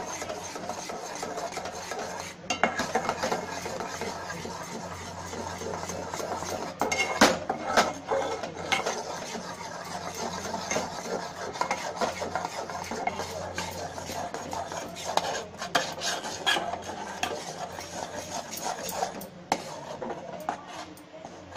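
A spatula stirs and scrapes gram flour into hot sugar syrup in a stainless steel pan, with irregular scraping clicks against the metal, loudest about seven seconds in. A steady low hum runs underneath.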